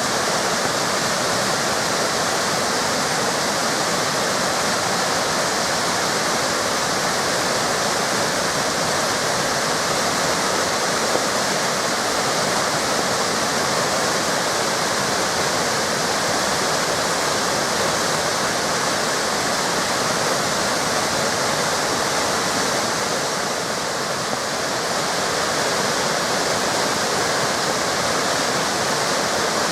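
Waterfalls on the Río Cuervo rushing steadily, a dense, even roar of falling water that eases slightly for a moment a little after the middle.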